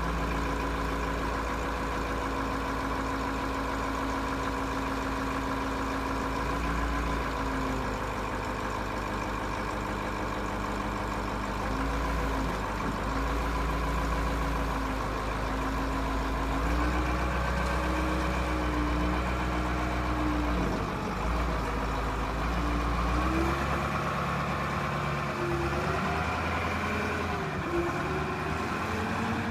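Grove LT409 forklift's diesel engine running at a steady speed, then revving up and down repeatedly through the second half.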